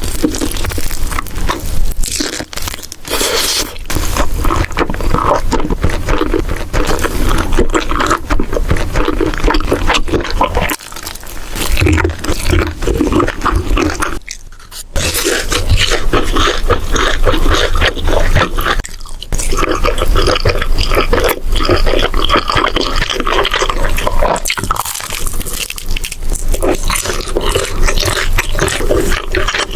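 Close-miked eating sounds: a person chewing and crunching food in a fast, dense crackle, with a few short pauses between bites.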